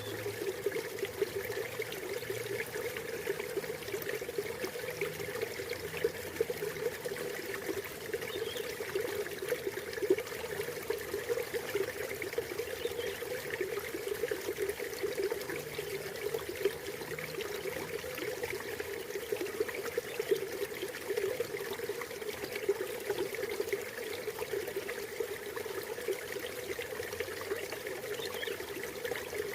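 River water flowing and trickling steadily, an even rushing with no pauses.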